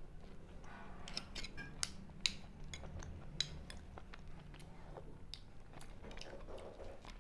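Close-up eating sounds: a mouthful of crisp toasted bread being chewed, with a spoon clinking and scraping in the bowl of stew. The sound is a quick scatter of small crackles and clicks with three sharper ones in the first half, easing to softer chewing near the end.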